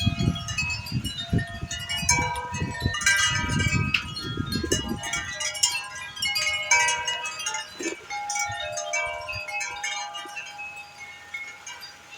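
Wind chimes ringing in gusty wind, many tones jangling together and slowly dying down near the end. Wind buffets the microphone with a low rumble through the first half.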